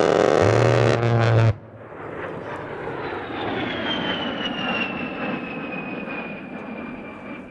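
An A-10C Thunderbolt II's GAU-8 Avenger 30 mm rotary cannon firing one long burst, a loud buzz that cuts off about a second and a half in. Then the jet's turbofan engines pass, with a high whine that slowly falls in pitch.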